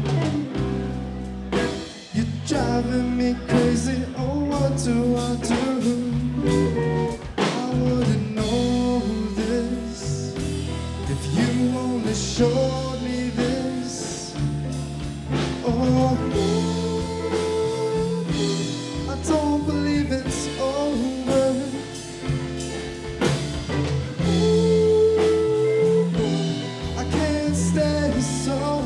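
Live rock band playing: electric guitar, bass guitar, drum kit and keyboard together.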